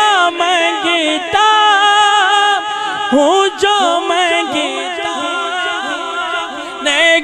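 A man's voice singing an Urdu devotional kalam (naat) into a microphone, drawing out long held notes that slide and curl in pitch.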